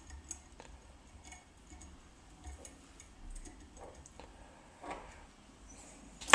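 Faint, scattered small clicks and rustles of fingers handling a thin signal wire and a metal Cardas RCA plug.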